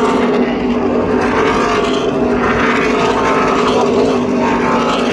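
NASCAR Truck Series race trucks' V8 engines running at speed, a loud, steady drone whose pitch drifts slowly.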